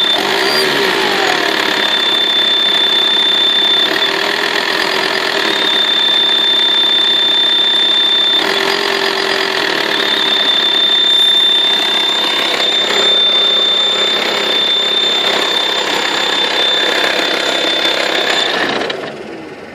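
VW T5 2.5 TDI AXD five-cylinder diesel idling hot, with a steady high-pitched whistle over the engine noise that drops out briefly a few times; the owner suspects the turbocharger, though the cause is unknown and it happens only on a hot engine at idle. The engine and the whistle die away near the end.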